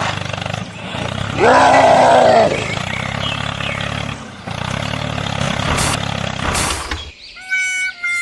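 Small engine running steadily, with a louder, rough roar lasting about a second starting about a second and a half in. The engine sound cuts off near the end and a tune begins.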